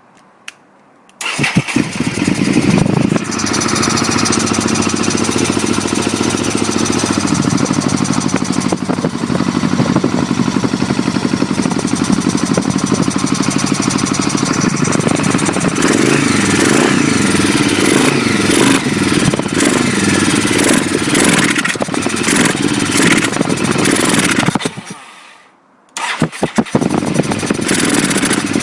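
Honda VTR V-twin motorcycle engine starting about a second in and running, with the carburettor noise the owner wants to show. Near the end it dies away and is started again.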